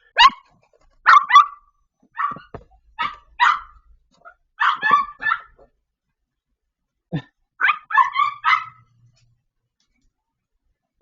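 A dog barking: a dozen or so short, sharp barks in quick runs of two or three, with brief pauses between the runs.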